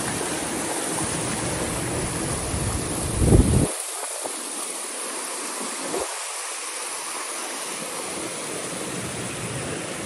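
Steady rush of a creek and small waterfall over boulders. Wind buffets the microphone for the first few seconds, with a thump about three and a half seconds in.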